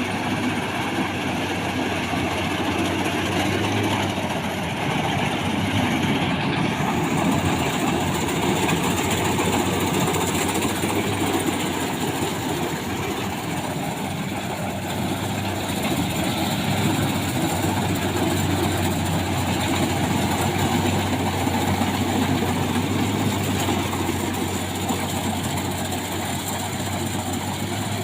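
Combine harvester running steadily, with a continuous engine drone and machinery noise.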